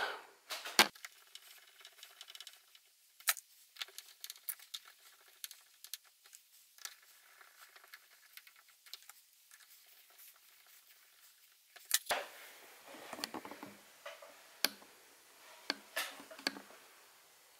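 Faint, scattered small clicks and taps of a hex driver and hands working screws into a plastic RC truck body. A busier run of louder clicks, knocks and light rustling comes near the end.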